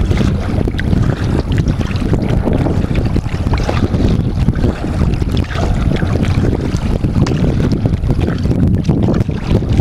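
Wind noise on the microphone, a dense low rumble throughout, with small splashes of choppy water against a kayak's hull.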